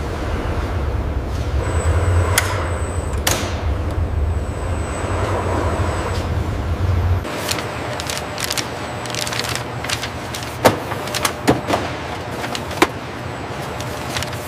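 Assembly-line machinery: a steady low mechanical rumble with a faint high whine, which stops about seven seconds in. A run of sharp clicks and clunks follows, several of them loud.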